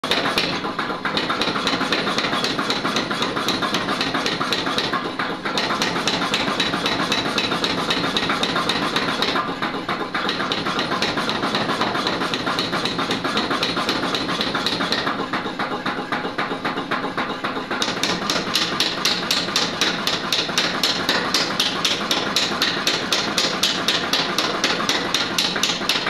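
Mechanical power hammer pounding a red-hot iron bar on its die in rapid, even blows, with a few short pauses; in the last third the separate strikes stand out more distinctly. Hot forging of the bar.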